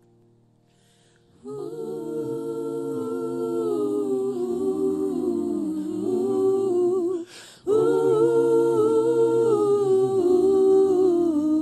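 A cappella gospel choir voices singing wordless sustained chords in close harmony. They come in about a second and a half in, break off briefly just past halfway, and swell back in louder.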